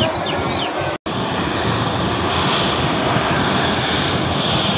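Landing jet airliners' engine noise, a steady rush: first an Airbus A320 rolling out on the runway, then a Boeing 737 touching down, joined by a momentary dropout about a second in where the recording is cut.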